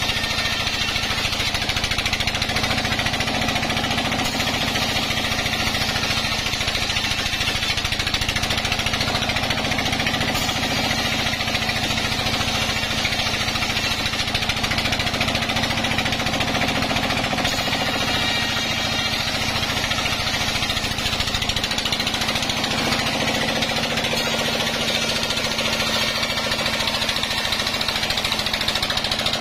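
Band sawmill running steadily, its vertical blade sawing lengthwise through a log as the log is fed past; a loud, unbroken machine noise with a fast even pulsing.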